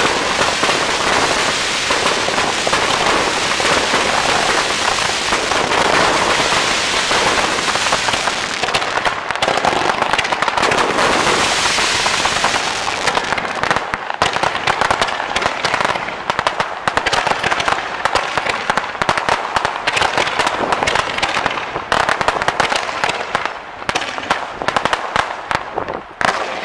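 Aerial fireworks crackling and popping. For about the first half it is a dense, unbroken crackle; then it breaks into rapid separate pops that thin out and stop near the end.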